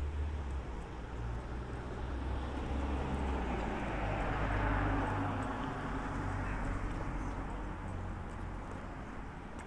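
Walking footsteps on a frosty pavement, heard over a steady low outdoor hum. A broad noise like passing traffic swells around the middle and fades away.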